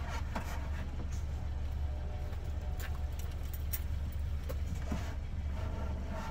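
Light taps and clinks as a replacement car door glass is handled and slotted into the door frame, scattered irregularly over a steady low rumble.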